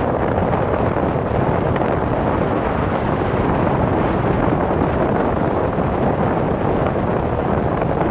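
Steady rush of wind and road noise inside a car moving at speed, the wind buffeting the phone's microphone, with a low engine drone underneath.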